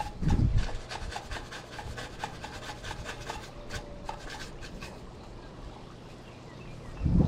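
Brush scrubbing mold and grime out of an aluminium pool-enclosure screen track: quick back-and-forth scratchy strokes, about three or four a second, fading out after about five seconds. A low rumble of wind on the microphone comes briefly at the start and again near the end.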